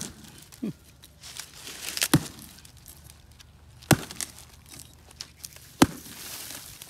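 Hatchet chopping into a section of sugar palm trunk: sharp blows about every two seconds, four in all, with lighter crackling of the fibrous wood between them.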